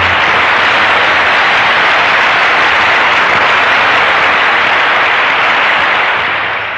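A large audience applauding: dense, steady clapping that eases off slightly near the end.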